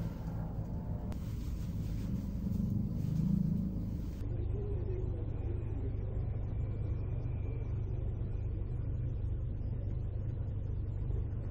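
Steady low rumble of a car heard from inside the cabin.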